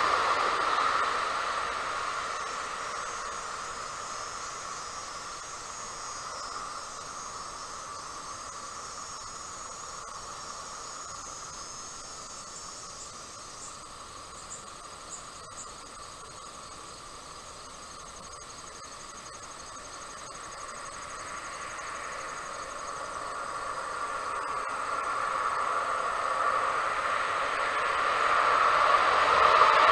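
Faint, high insect chirring runs through the quiet middle, under a steady rushing noise that fades over the first few seconds and swells again toward the end.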